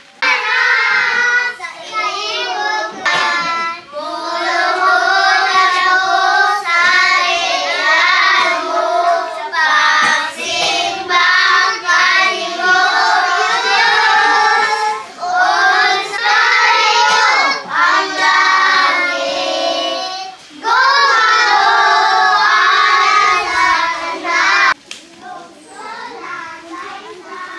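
A group of children singing a song together, in phrases of a few seconds with short breaks. The singing cuts off suddenly near the end.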